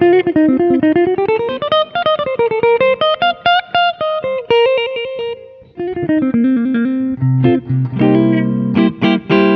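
Tokai ALS62 Gold Top Les Paul-style electric guitar played clean through an amp, with the pickup selector in the middle position mixing both humbuckers. Quick single-note runs rise and fall, then from about seven seconds in come a few ringing chords.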